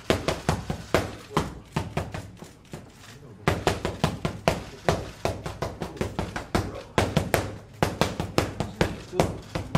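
Boxing gloves slapping into focus mitts in rapid combinations, several sharp smacks a second, with a short lull about two to three seconds in.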